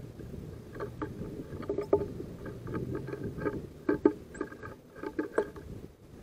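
Great tit pecking at seed in a wooden bird-feeder tray: rapid, irregular taps and knocks of beak and feet on wood, the sharpest about two and four seconds in.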